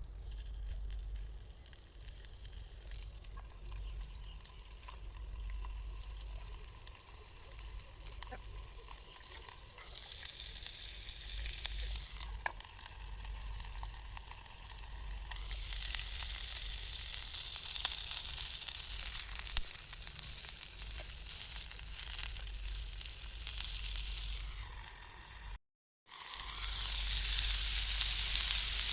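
Food sizzling as it fries in a pan, the sizzle growing louder about halfway through, with a few sharp taps like a utensil against the pan. It cuts out for a moment near the end and comes back louder.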